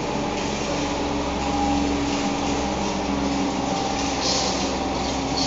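Paint can crusher/grinder machine running, a steady mechanical hum over a low rumble, with a brief hiss about four seconds in.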